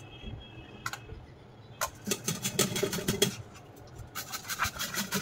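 A carrot scraped quickly up and down a stainless steel flat hand grater, a rasping scrape at about five strokes a second, with a brief pause partway through. A single click comes about a second in, before the grating starts.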